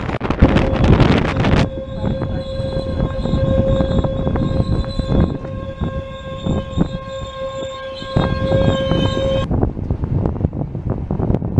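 Passenger train running with wind noise and wheel clicks over rail joints. Then a steady squeal with overtones holds for about eight seconds as the train slows into a halt, and cuts off abruptly before the end, leaving plain running noise.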